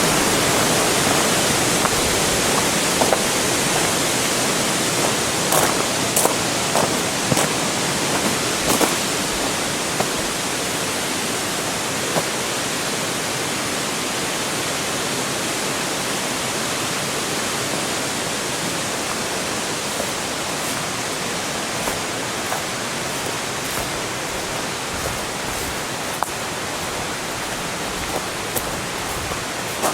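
Waterfall rushing, a steady full noise that slowly grows a little quieter, with scattered faint clicks over it.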